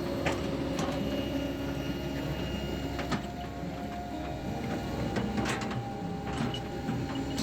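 Heavy construction machinery running steadily, with scattered clicks and knocks.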